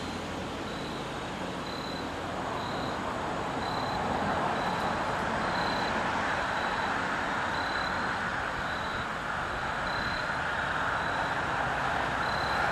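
Wind buffeting the microphone: a steady noisy rush with a rumbling low end that grows louder about four seconds in. A faint high beep repeats about once a second.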